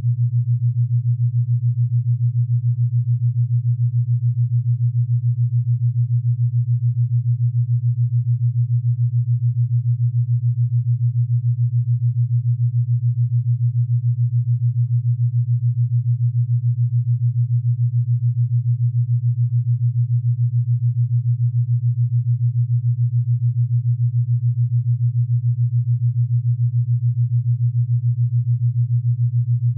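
Steady low electronic test tone with a fast, even flutter in loudness, the kind of signal played over a colour-bar test pattern.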